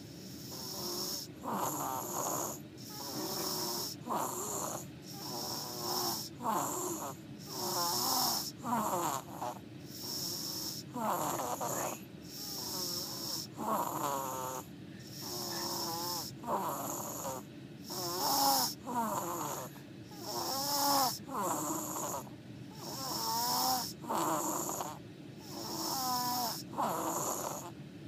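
Snoring: a quick, regular run of noisy breaths, about one a second, many of them with a high wavering squeak.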